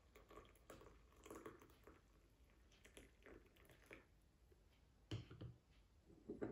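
Faint scattered clinks and taps as tea is poured from a glass French press into a glass cup. About five seconds in comes a dull thump as the press is set down on the wooden table, and another thump follows near the end.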